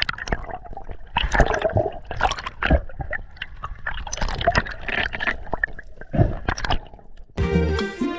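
Water splashing and gurgling close to the microphone in irregular bursts, as in swimming at the surface of the sea. Music comes in near the end.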